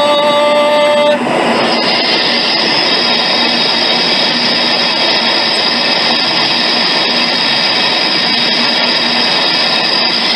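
Synthesized electronic sound. A chord of steady held tones gives way about a second in to a dense, rushing noise texture topped by a steady high whine, which ends with a short downward swoop back into tones.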